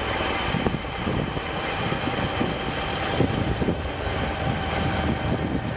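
Engine noise from military vehicles in the field: a steady whine over an uneven rumble with irregular knocks.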